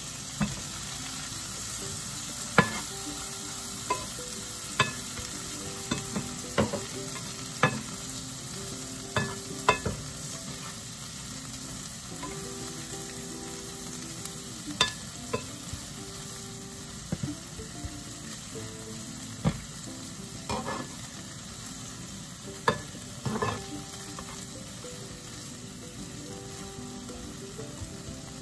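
Diced tomatoes, onions and bacon bits sizzling in a frying pan with a steady hiss, while a metal spatula and fork stir them, knocking and scraping against the pan at irregular intervals.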